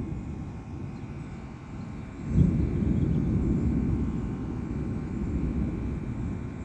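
Thunder rumbling low, swelling suddenly about two seconds in and then slowly fading.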